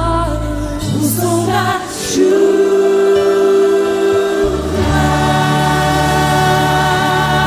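Gospel worship music: a choir singing held notes over sustained keyboard chords and bass, with a fuller chord coming in about five seconds in.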